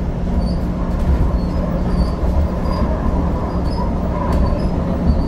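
Red Line light rail car running along the track, heard from inside the car: a steady low rumble with a constant hum.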